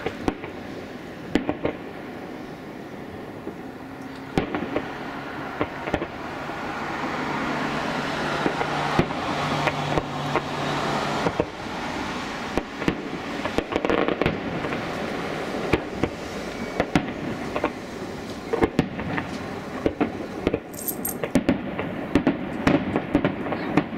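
Fireworks display: aerial shells bursting in a run of sharp bangs and crackles that comes thicker toward the end. A low steady hum sits under it for several seconds in the middle.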